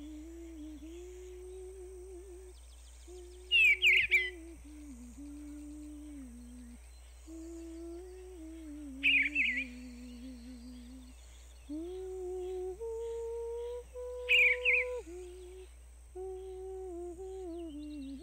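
A slow, wordless hummed tune runs throughout. Three short bursts of bird chirps, about five seconds apart, cut in over it and are the loudest sounds.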